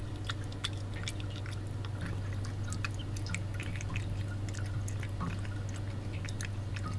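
An elderly cat eating wet food from a ceramic bowl: irregular wet clicks and smacks of chewing and licking, over a steady low hum.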